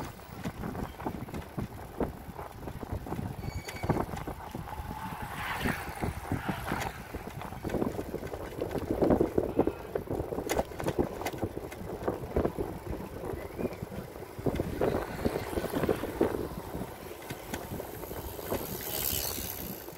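Wind noise on the microphone of a camera riding on a moving bicycle, mixed with the steady rattle and dense small clicks and knocks of the bike rolling over pavement. A brief hiss comes near the end.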